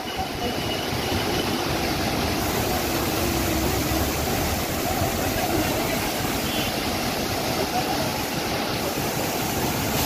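Tall waterfall in heavy flow: water falling from a height and rushing down over boulders, a steady, even rushing noise.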